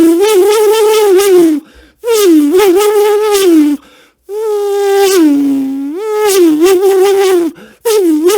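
A man's voice making buzzing, humming sound effects in repeated phrases of one and a half to three seconds, each wavering and dipping in pitch, with short breaks between them.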